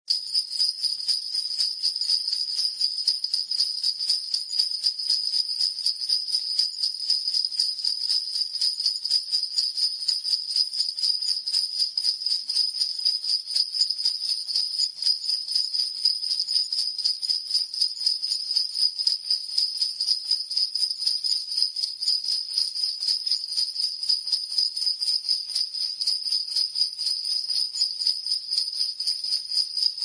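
Sleigh bells shaken in a steady rhythm at 120 beats per minute, giving a continuous bright jingle.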